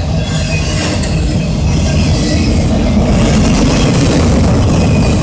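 Freight train of autorack cars rolling past at close range: a steady, loud rumble of steel wheels on the rails, with faint high wheel squeals now and then.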